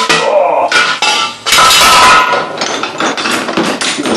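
Metal outboard motor parts knocking and clanking together as they are handled, with a longer, louder rattle about a second and a half in.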